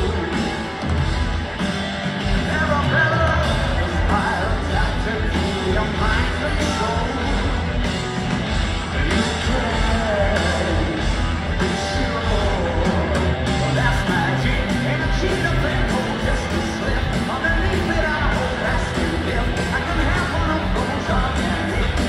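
A rock band playing live in a stadium, heard from among the crowd: loud, continuous drums, bass and electric guitars with singing mixed in.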